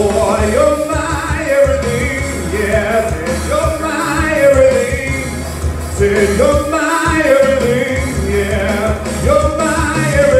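Man singing a gospel worship song into a handheld microphone over recorded backing music with a steady bass.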